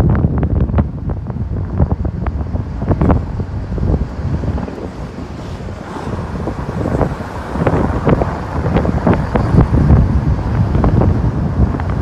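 Heavy wind buffeting the microphone of a camera filming from a moving car, with the car's running and road noise underneath. The buffeting eases a little about four seconds in and builds again from about six seconds.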